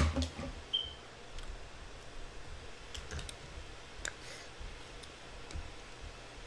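Scattered small clicks and low knocks of handling. The loudest knock comes at the very start, and a brief high tone sounds about a second in.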